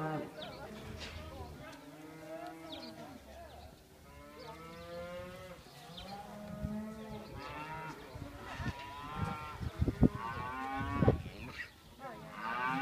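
Several cattle mooing over and over, their calls overlapping. Near the end two sharp knocks stand out as the loudest sounds.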